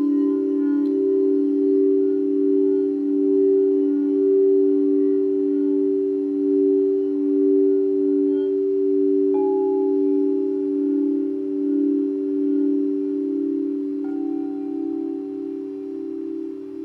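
Singing bowls ringing with two low, sustained tones that pulse in a slow wobble. A bowl is struck again about nine seconds in and once more near the end, each strike adding a higher ringing tone that slowly fades.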